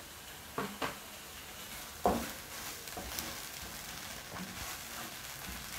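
Onion, garlic and ginger frying gently in oil in a non-stick pan, with a wooden spatula stirring and knocking against the pan a few times; the loudest knock comes about two seconds in.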